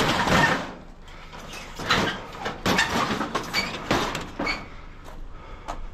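Sheet-metal light fixture housings being handled and stacked, clattering and scraping against each other and the load in a series of bursts. The loudest comes right at the start, several more follow in the middle, and they fade to lighter knocks near the end.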